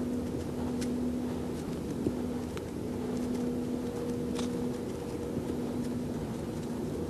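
Steady low mechanical hum with a droning tone that fades and returns, with a few faint sharp ticks over it.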